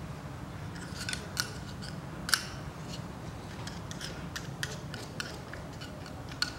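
Screwdriver tip clicking and scraping against a grease tub and the metal gear of a spare-wheel winch as grease is dabbed on: a string of short, irregular clicks, the sharpest a little over two seconds in.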